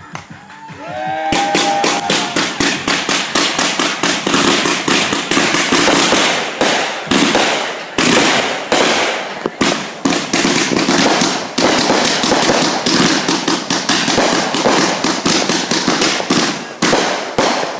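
Fireworks going off as a dense, unbroken run of rapid crackling pops, many a second, starting about a second in.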